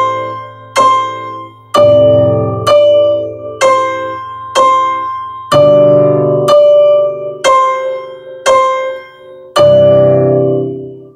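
Digital stage piano with a piano sound playing a slow pop ballad: chords through C–Am–F–G with a repeated two-note top melody (D, D, C, C), struck about once a second. It ends on a C chord that rings and fades near the end.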